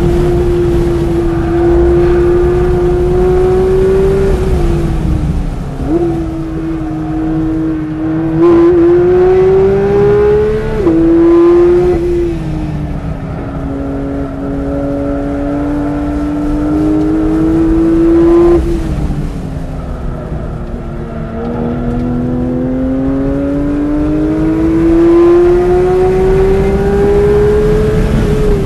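Porsche 992 GT3 RS's naturally aspirated flat-six pulling hard on track, heard inside the cabin. The note climbs slowly in pitch as the car speeds up and drops abruptly about three times.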